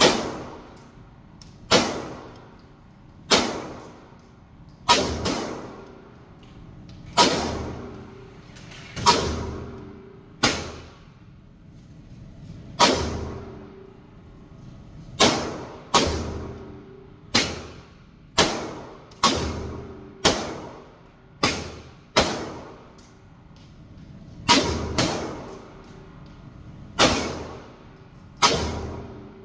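AR-15 rifle fired at a slow, irregular pace, about twenty shots spaced roughly one to two seconds apart, each ringing off briefly in the echo of an indoor range.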